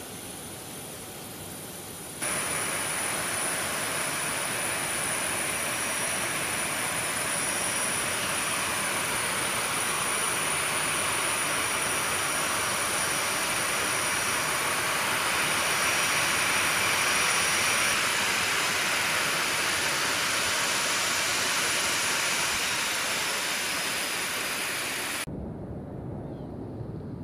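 Jet aircraft engines running: a steady rushing noise with a thin high whine over it. It jumps louder about two seconds in and cuts down abruptly near the end.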